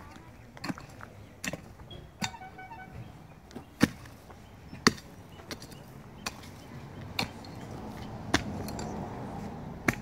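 A shovel chopping into tree roots and packed dirt: about ten sharp single strikes, roughly one a second and unevenly spaced. A low rumble builds in the background over the last few seconds.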